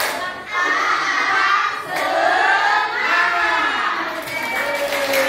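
A group of teenage students shouting and cheering together, many voices at once, with a brief lull about half a second in.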